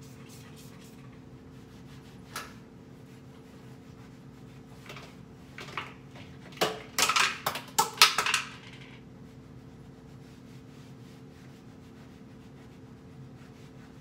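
Handling noise while cleaning out a kitchen cabinet: a single knock a couple of seconds in, then a quick run of sharp clicks and clatters lasting about two seconds in the middle, over a steady low hum.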